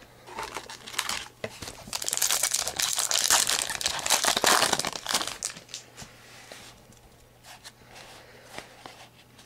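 A foil trading-card pack wrapper being torn open and crinkled by hand, a dense crackling that lasts about five seconds. Then a few faint clicks as the cards are handled.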